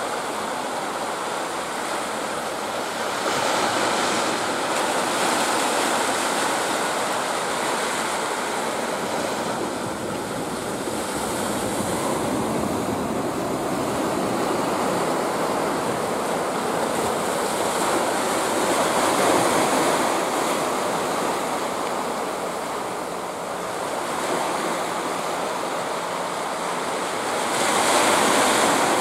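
Sea surf washing onto a rocky shore: a steady rushing wash that swells louder now and then as waves break.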